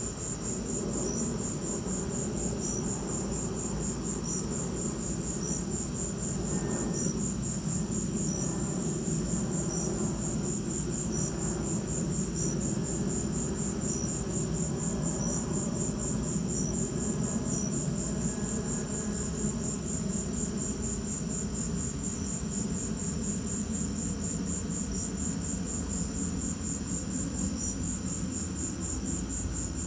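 Night chorus of crickets: a continuous fast high trill, with a separate chirp repeating about every second and a half. A steady low rumble runs underneath.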